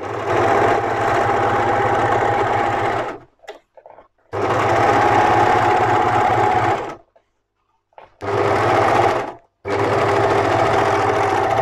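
Overlocker (serger) running in four runs with short stops between them, overcasting a single cut edge of a seam allowance.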